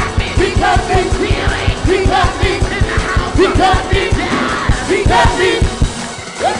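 Live gospel choir singing with a full band over a fast, driving drum beat; the drums drop out near the end.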